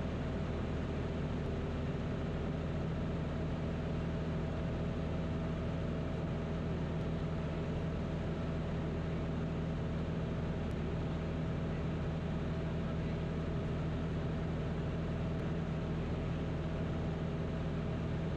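Single-engine piston airplane's engine and propeller droning steadily in cruise, heard inside the cockpit as an even hum with a low pitched note.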